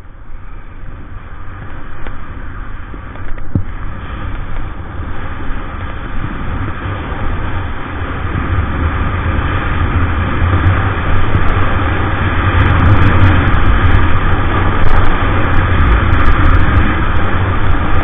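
Wind buffeting an action camera's microphone, with skis hissing and scraping on packed snow during a downhill run; the rush grows steadily louder as speed builds.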